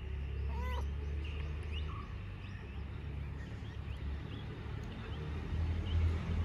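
A cat gives one short meow about a second in, over faint bird chirps and a steady low rumble.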